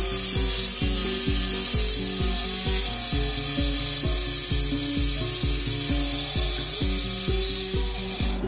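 Jigsaw cutting through the steel wall of an old gas bottle, a loud steady cutting noise that stops near the end. Under it runs background music with a steady beat.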